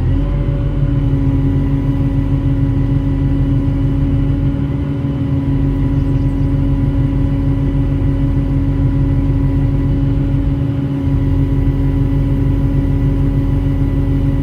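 Volvo hydraulic excavator's diesel engine running at steady high revs with a constant whine, having just revved up as the sound begins, over a low rumble that dips briefly twice.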